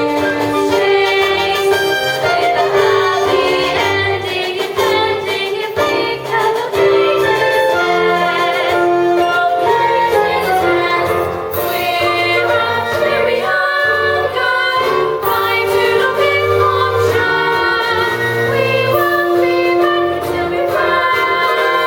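A young stage-school cast singing a musical-theatre song with instrumental accompaniment.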